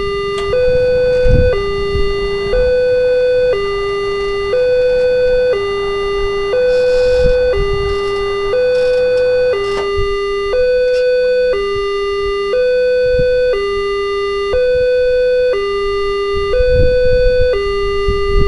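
Railway level-crossing warning alarm sounding a two-tone hi-lo signal, switching between a lower and a higher tone about once a second. It warns road traffic that a train is approaching and the barrier is closing.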